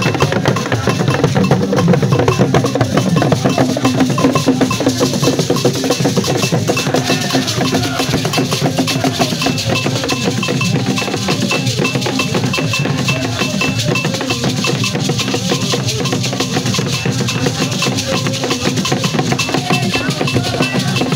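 Vodu ceremonial drumming: several drums and sharp struck percussion playing a dense, steady rhythm.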